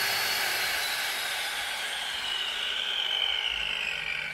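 Corded 7-inch angle grinder with a diamond blade running free, with no load on the disc, giving a high whine. The whine slowly falls in pitch and fades.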